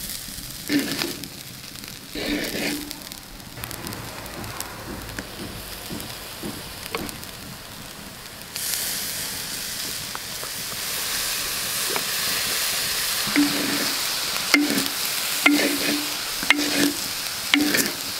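Fried rice sizzling in a hot clay pot, stirred with a wooden spatula that scrapes the pot in separate strokes, early on and again near the end. A little over eight seconds in, the sizzle turns suddenly louder as soy sauce is poured onto the hot rice.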